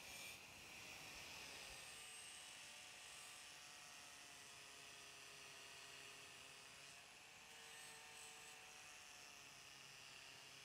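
Angle grinder with an abrasive disc grinding a steel knife blank: a faint, steady motor whine with a hiss of grinding.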